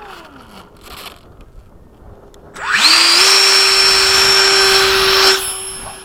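Electric ducted fan of a radio-controlled jet spooling up quickly to full throttle about two and a half seconds in, a loud steady high whine, for launch. The whine drops away sharply a little after five seconds in as the jet leaves.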